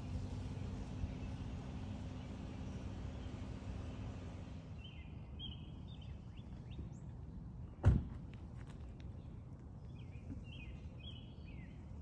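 A low steady hum over outdoor background noise, which stops about a third of the way in; then a small bird calls in two short runs of high chirps, with a single sharp thump about two-thirds of the way through, the loudest sound.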